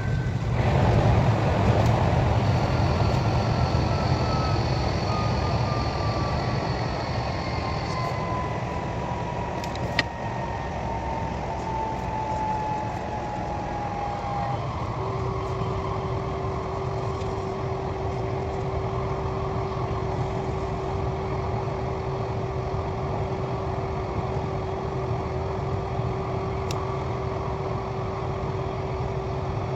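KTX high-speed train running noise heard from inside the carriage: a steady rumble with a thin whine that falls steadily in pitch over about the first half as the train slows for a station approach, then a single steady tone holding to the end.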